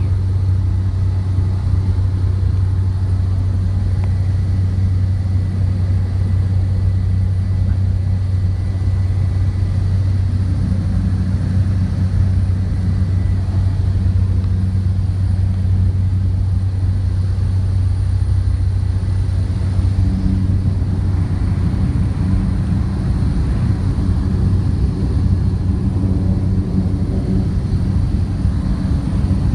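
Small plane's engine and propeller heard from inside the cabin in flight: a steady, loud low drone that holds the same pitch throughout.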